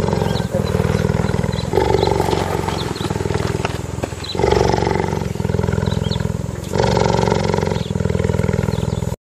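Big cat growling in a low, pulsing rumble, with a louder rasping swell about every two to two and a half seconds; it cuts off abruptly just before the end.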